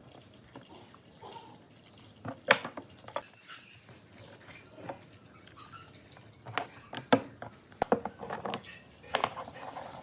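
Scattered knocks and clicks of wood and tools being handled at a workbench, with quiet between them; the sharpest come about two and a half and seven seconds in, and a quick run of them near the end.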